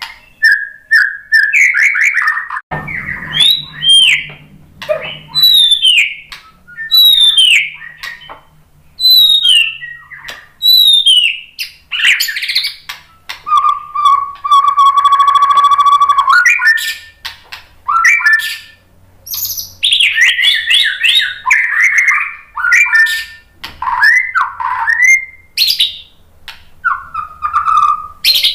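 White-rumped shama singing: loud, varied whistled phrases of quick rising and falling notes, with a long buzzing, rattling phrase around the middle.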